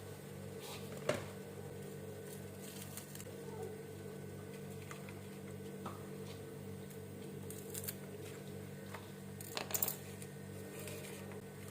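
A few light clinks and taps, one about a second in and a quick cluster near the end, over a steady low hum.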